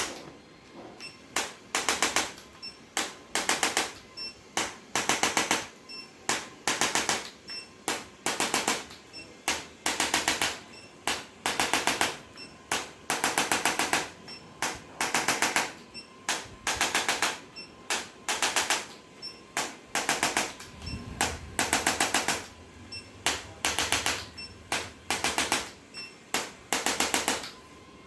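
Handheld chiropractic adjusting instrument firing short bursts of rapid mechanical taps, over and over, at roughly one burst a second. Each burst is a quick rattling run of clicks lasting under a second.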